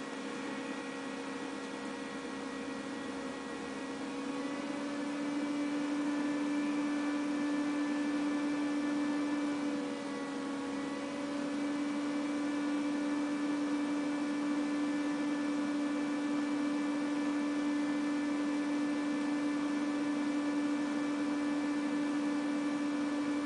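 Steady electrical hum: one low tone with several higher overtones. Its pitch wavers slightly about four and ten seconds in, and it grows a little louder after about five seconds.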